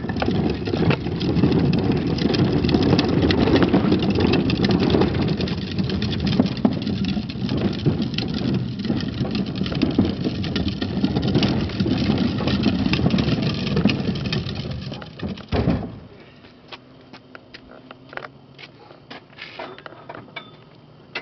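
Wheels of plastic trash carts rolling over a concrete sidewalk, a loud steady rumble that stops about three-quarters of the way through. After it, a few light clicks and knocks.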